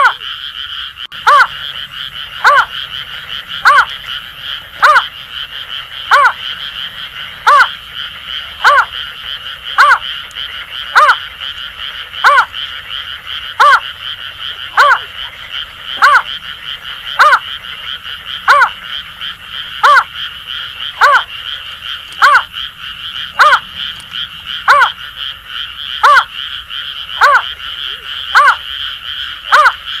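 Greater painted-snipe giving a long, evenly paced series of short hooting calls, about one every 1.2 seconds, the repeated call used as a lure for the species. Under it runs a steady, unbroken chorus of Asian grass frogs calling at night.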